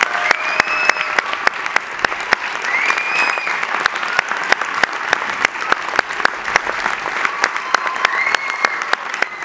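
Theatre audience applauding steadily, with many hands clapping and a few voices whooping above the clapping near the start, about three seconds in and near the end.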